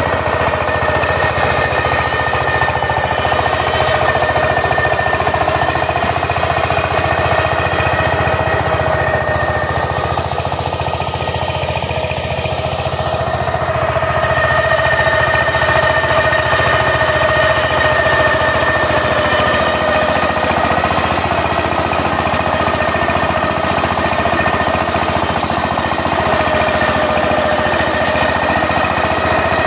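Single-cylinder diesel engine of a two-wheel power tiller running steadily with a fast, even chugging beat while it drives the rotary tiller through the soil.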